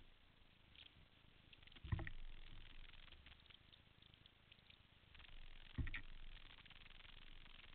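Near silence with a low hiss, broken by two dull knocks about four seconds apart.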